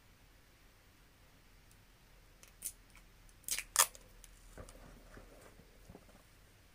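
Scissors snipping sticky tape: a few sharp snips about halfway through, the loudest near the middle, then a few softer ticks as the tape is handled.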